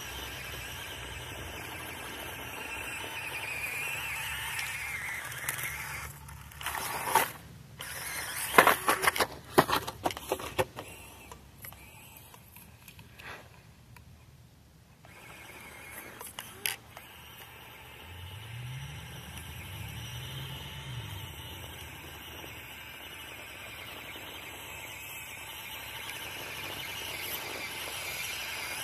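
SCX24 Wrangler micro RC rock crawler's small electric motor whining as the truck crawls over dirt and dry grass. A run of loud crackling and snapping comes about a third of the way in.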